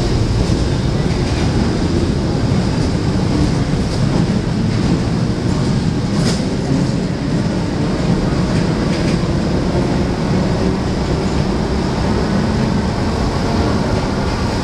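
Early-1900s Buenos Aires Subte Line A subway train pulling out along the platform, a steady rumble of wheels on rail with one sharp clack about six seconds in.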